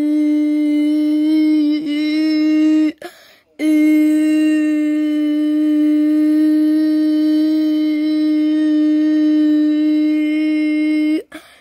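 Mock Emergency Broadcast System attention signal: a single loud, steady buzzing note held on one pitch. It breaks off briefly about three seconds in, then resumes and holds until just before the end.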